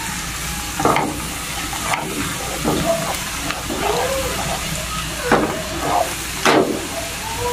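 Coconut cream frying down into latik in a wok: the separated coconut oil sizzles and bubbles around the browning curds. A silicone spatula stirs through them, scraping the pan about five times.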